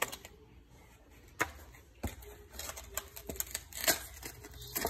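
Scattered light clicks and taps, about half a dozen, from a clear plastic clamshell berry container being handled.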